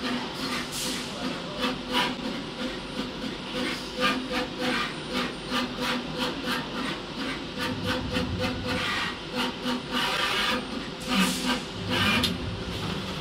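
Automated optical inspection machine for through-hole boards running: a steady motor hum with frequent irregular clicks and rattles of its mechanism, louder near four seconds and again around eleven to twelve seconds.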